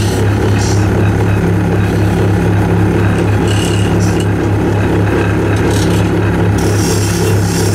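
Wood lathe running with a steady hum while a pointed turning tool cuts into the spinning wood, the scraping hiss of the cut coming and going several times.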